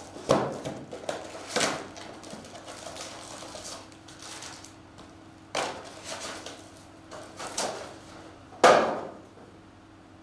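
Sealed foil packs of trading cards and their boxes being handled on a table: several separate knocks and rustles, the loudest near the end.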